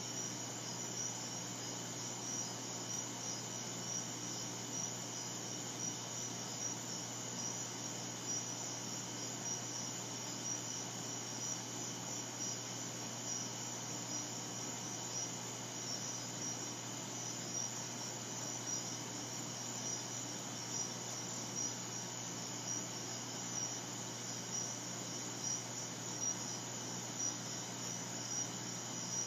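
Crickets chirping in a steady, high, pulsing chorus, with a steady low hum underneath.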